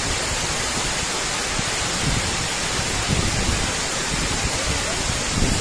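Waterfall pouring over a rock ledge into a pool: a steady, unbroken rush of falling water.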